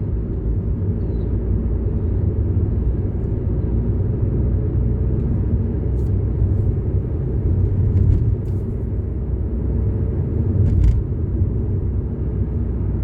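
Car driving, heard from inside the cabin: a steady low rumble of engine and tyres on the road, with a few faint clicks.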